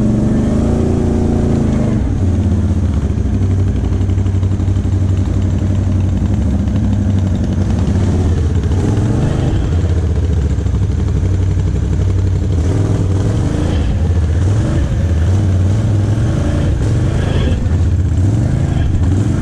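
Can-Am XMR ATV's V-twin engine running up close at trail speed, its note rising and falling several times as the throttle is worked.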